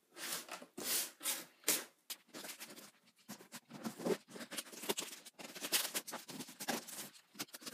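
Utility knife scraping and slicing through packing tape along the seam of a cardboard shipping box, with hands rubbing over the cardboard: a quick, uneven run of short scratching strokes.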